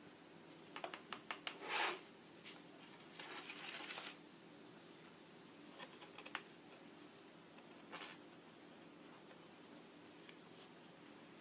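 Cardboard scratching and tapping as a cat paws at a teaser toy poked through the holes of a cardboard play box. A run of quick clicks ends in the loudest scrape about two seconds in, a longer rustling scrape follows around three to four seconds, then a few scattered taps.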